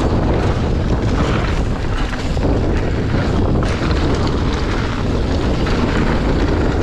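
Wind buffeting the microphone of a mountain bike rider moving fast along a dirt trail, a loud steady rush with trail rumble underneath.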